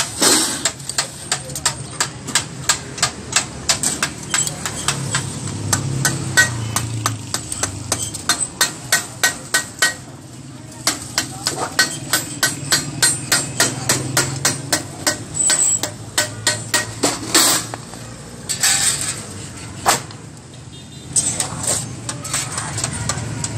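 Hand hammer beating the edge of a thin metal sheet down over a steel bar to fold it: quick, even metallic blows, about three to four a second, with a couple of short pauses.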